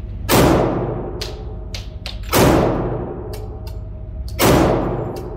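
Three pistol shots about two seconds apart, each echoing and fading in an indoor shooting range. Fainter shots from other lanes crack in between.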